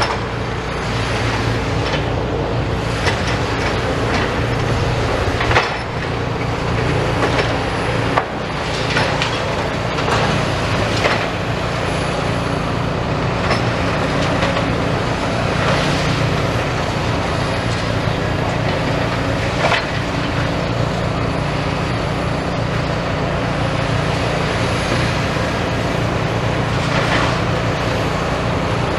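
Demolition excavators at work: a steady low diesel engine hum with frequent sharp knocks and crunches as the machines break up the building.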